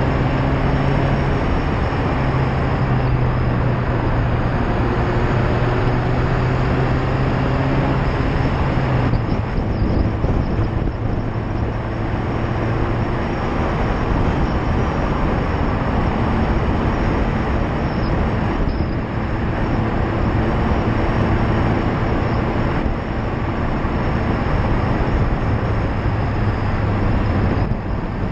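Loud tyre and road noise picked up at the bumper of a Mazda MX-5 ND2 driving at speed, with the car's four-cylinder engine and exhaust running underneath as a steady tone that drops away about nine seconds in and changes pitch a few more times.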